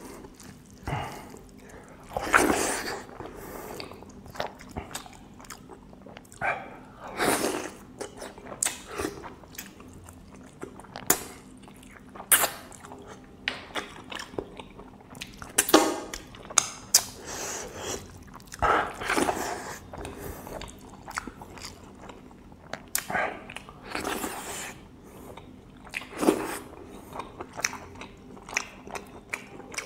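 Close-up sounds of a person eating by hand: irregular chewing, lip smacks and wet mouth clicks, with rice and curry squished between the fingers on the plate.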